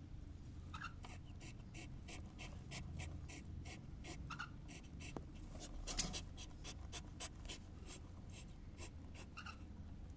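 Cockatiel giving three brief, soft chirps, about a second in, around four and a half seconds in and near the end, over a steady run of short scratchy clicks about three a second, the loudest click about six seconds in.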